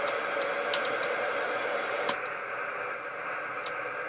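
CPI CP300 CB radio receiving only hiss-like band static through its speaker, with no station coming through, while a series of sharp clicks from its channel selector knob being turned sounds several times in the first second and twice more later.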